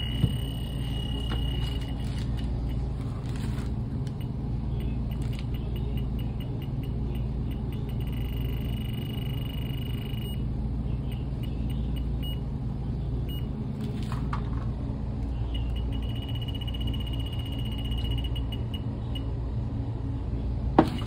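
Fieldpiece DR82 infrared refrigerant leak detector alarming in a high-pitched tone, over a steady low hum of running equipment. Several times the tone runs as fast ticks that merge into a continuous tone and then stop, the detector reacting to refrigerant at its probe. A sharp click comes just after the start and another just before the end.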